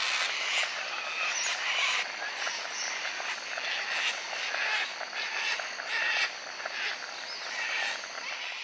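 A flock of sulphur-crested cockatoos screeching, harsh calls following one another and overlapping every half second or so.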